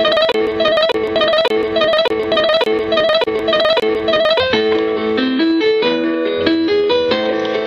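Music: a plucked, guitar-like melody repeating a short figure about twice a second. About four and a half seconds in it changes to a new figure with longer held notes.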